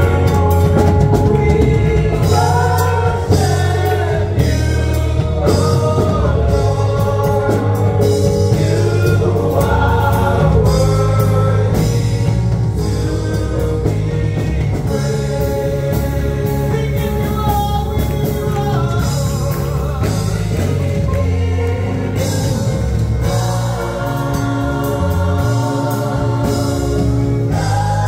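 Church praise team singing a gospel song with a band: several voices over steady bass and drums.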